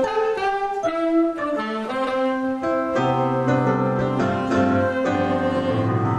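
Music: a single melody line moving note by note over keyboard accompaniment, with fuller low sustained chords joining about halfway through.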